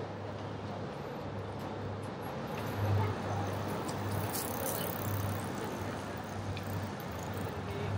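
City street ambience: road traffic passing in a steady background wash, with one passing vehicle rising briefly about three seconds in.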